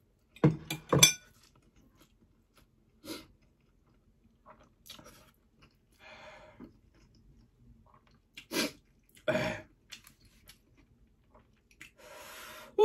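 Close-up eating sounds of extra-spicy noodles: two loud slurps in quick succession about a second in, then open-mouthed chewing with scattered mouth clicks, and several sharp, breathy exhalations and huffs like coughs, the sign of the burn of the spice.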